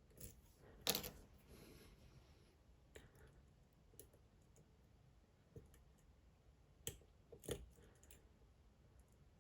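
Faint, scattered clicks of lock picks working the pins inside a Dom IX Twinstar cylinder, a handful of sharp ticks spread apart, the loudest about a second in.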